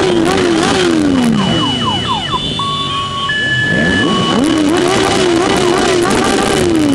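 Motorcycle engine, a Kawasaki Z750 inline-four, revved hard against its rev limiter, the pitch held high and bouncing, dropping away about a second in. In the middle a few short steady horn blasts at different pitches, then the engine is revved back up onto the limiter and falls off again near the end.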